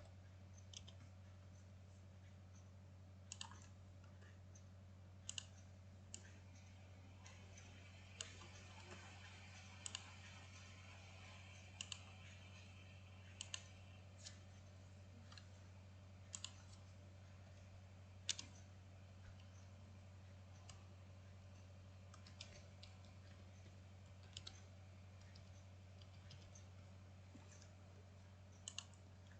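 Computer mouse clicking, single and double clicks every second or two, over a faint steady low electrical hum.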